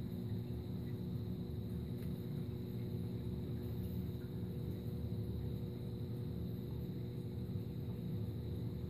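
Steady electric hum of saltwater aquarium pumps running, with several constant tones over a low wash of circulating water.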